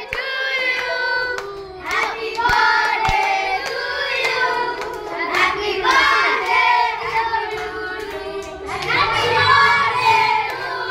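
A group of children singing together, with hand clapping.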